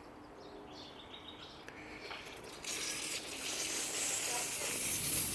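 Hiss of an in-ground sprinkler zone starting up: it comes in about halfway through and grows steadily louder as the line pressurizes and the heads begin to spray.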